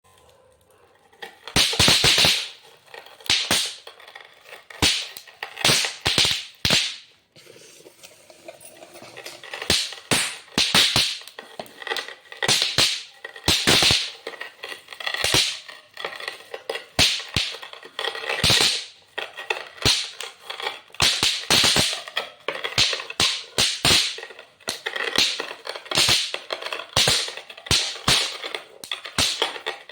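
Bang snaps ('pop pop' crackers) going off one after another: a long run of sharp, irregular cracks, some single and some in quick clusters.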